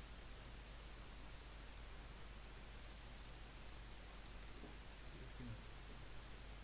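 Computer mouse clicking: light, short clicks scattered through, some in quick pairs and triples, over a steady background hiss.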